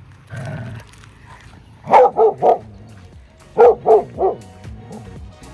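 A dog barking in two quick runs of three barks, about two seconds in and again a second and a half later.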